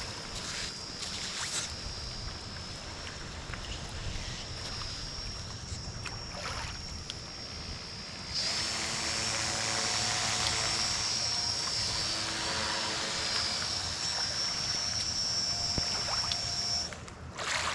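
Homemade radio-controlled boat's motor and propeller running with a steady high whine. About eight seconds in it grows louder, with a lower hum joining the whine, as the boat is driven harder, and it drops away near the end.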